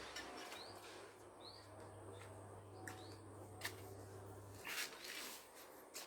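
Faint bird chirps: a few short, hooked high calls spaced about a second apart, with a few sharp clicks in the second half and a low steady hum through the middle.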